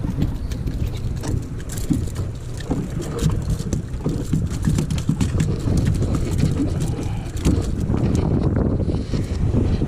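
Wind rumbling and buffeting on the microphone, with scattered small knocks and clicks throughout.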